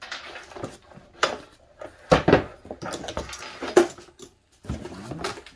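Handling of a canvas tool bag on a table: fabric rustling, with metal clamps clinking and knocking several times, loudest about two and four seconds in.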